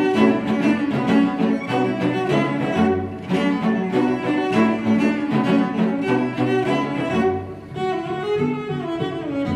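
Cello quartet: four cellos playing together, with short, detached notes in a brisk rhythm over a low bass line. About three-quarters of the way in, the playing turns to smoother, sustained bowed lines.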